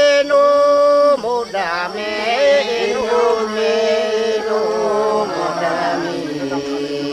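Background music: a chanted vocal line with wavering held notes over a steady drone.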